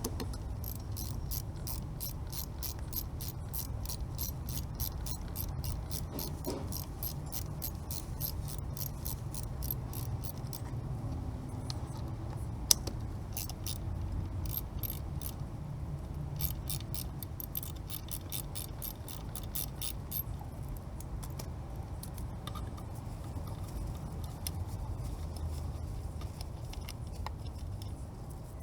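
Honda Zoomer scooter running with a steady low rumble and a rapid, even ticking rattle from the drivetrain, the abnormal noise being checked. The ticking runs for about ten seconds, then stops and starts in shorter spells.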